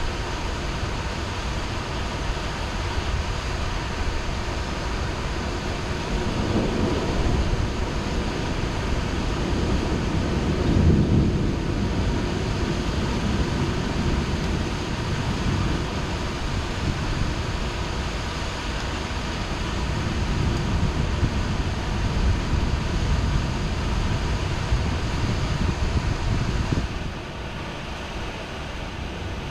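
Heavy rain falling steadily during a thunderstorm, with low rolling rumbles of thunder swelling several times, loudest about eleven seconds in. The overall level drops suddenly a couple of seconds before the end.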